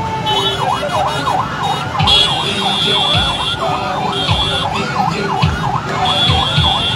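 Vehicle siren going in a fast up-and-down yelp, about three sweeps a second, over crowd and traffic noise, with a steady high whistle-like tone sounding twice.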